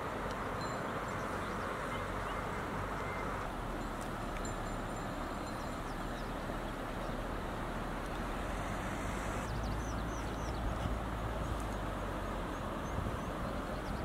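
Steady rushing outdoor ambience with a few faint, high bird chirps; the upper hiss thins about two-thirds of the way through.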